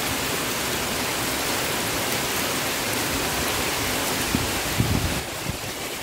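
Heavy tropical downpour in strong wind: a steady hiss of rain falling on corrugated metal roofs and trees. A few low wind buffets on the microphone come about four to five seconds in.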